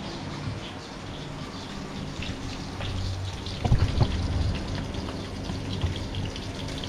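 Battered fish frying in hot oil: a steady sizzle with crackling spatter, and a couple of utensil knocks about four seconds in.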